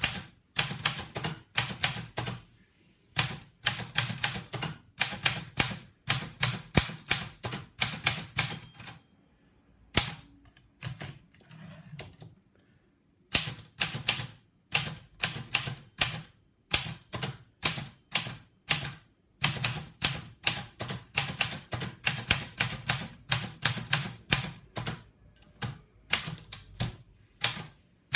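Patria manual typewriter being typed on: quick, irregular keystrikes of the typebars several times a second. There is a short high ring about eight seconds in, then a pause of a few seconds with a single strike and some faint mechanical sounds before the typing resumes.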